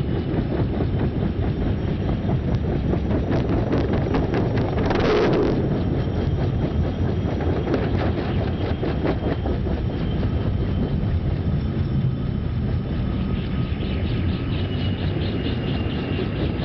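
Small helicopter running with its main rotor turning, the blades chopping in a fast, even rhythm over a heavy rushing noise. A short, louder rush of noise comes about five seconds in.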